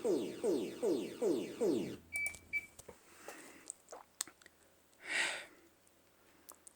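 Electronic alarm tone of quick falling sweeps, about two and a half a second, played as a purported emergency alert (EAS) signal that is then judged fake. It stops about two seconds in and is followed by two short high beeps, a few faint clicks and a brief hiss.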